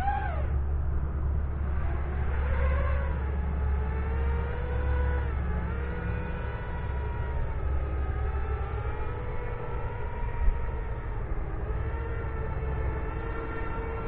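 Brushless motors and propellers of a small FPV racing quadcopter whining in flight, the pitch sweeping sharply up and back down at the start as the throttle is punched, swelling again a couple of seconds later, then holding a steadier hover whine. A steady low rumble of wind on the microphone runs underneath, with one sharp tick about ten seconds in.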